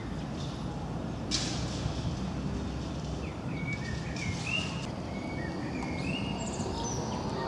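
Small birds chirping in short, scattered calls over a steady low street rumble.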